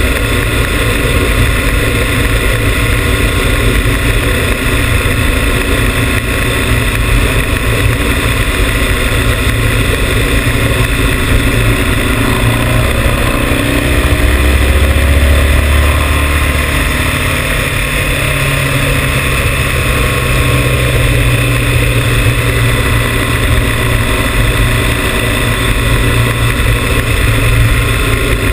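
Motorcycle engine running at road speed, heard from on board the bike, with steady wind rush over the microphone. The engine note shifts and glides in the middle.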